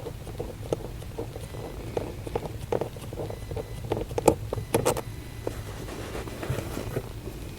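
Toyota Highlander with a steady low hum and a series of short, irregular clunks and knocks, the louder ones about four to five seconds in. This is the steering clunk of a worn intermediate steering shaft.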